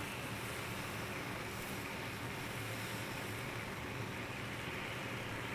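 Steady sizzle and hiss from a gas griddle top, with chicken browning under a cover and the burners running.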